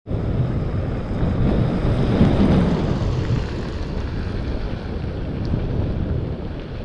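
Wind buffeting a Contour GPS action camera's microphone on a moving bicycle, a steady rumbling rush that swells briefly about two seconds in.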